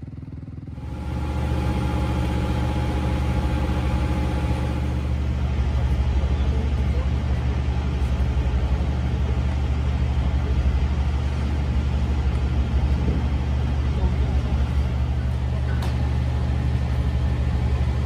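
An engine idling steadily, a low, even hum that comes in about a second in.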